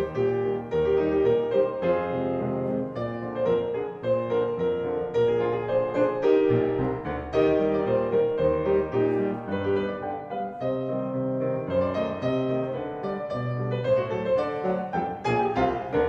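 Grand piano playing a solo polka passage, with a steady beat of repeated chords over bass notes.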